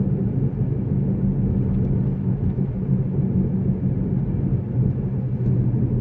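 Steady low rumble of a 2005 Mazda 3 2.0L being driven: road and drivetrain noise, wavering slightly in level.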